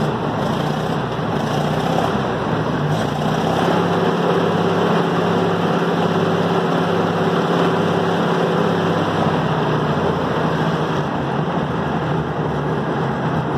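Ford Jubilee tractor's four-cylinder gasoline engine running steadily, now that a little debris has been cleaned out of its carburettor.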